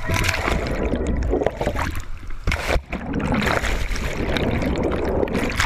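Whitewater rapids rushing and splashing against a kayak and washing over the camera, which goes underwater. The water noise surges unevenly, with brief dips about one and three seconds in.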